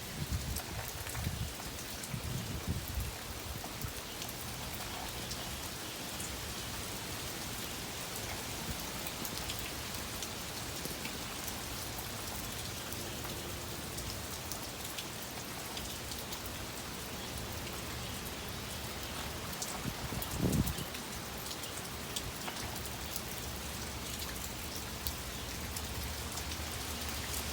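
Steady rain falling in gusty wind, a dense hiss of drops. Wind buffets the microphone in low rumbles during the first few seconds and once more, more strongly, about twenty seconds in.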